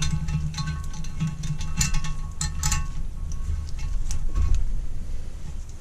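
Hand tap being turned in a bolt hole on a Lister D engine to cut new thread: irregular metallic clicks with short squeaks as the tap bites into the metal.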